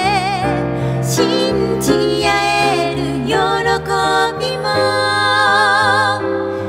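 Woman singing a slow Japanese pop ballad to piano accompaniment, with vibrato on held notes.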